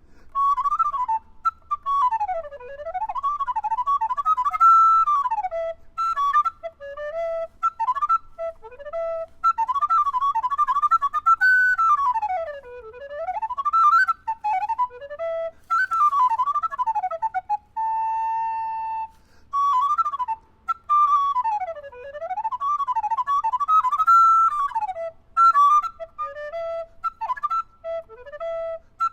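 Solo recorder playing fast, twisting runs that sweep up and down, with bursts of insistent repeated notes and one long held note about two-thirds of the way through: a piece in imitation of nightingale song.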